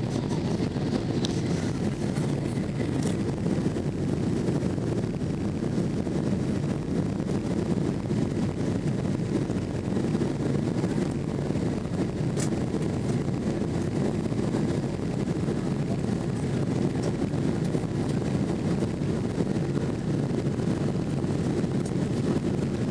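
Steady low rumble of engine and airflow noise heard inside the cabin of a Boeing 767-330ER on final approach.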